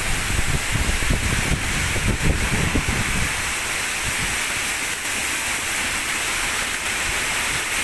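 Heavy downpour: a steady hiss of rain pouring onto the street. Over the first three seconds or so there is also a low, uneven rumble under the hiss.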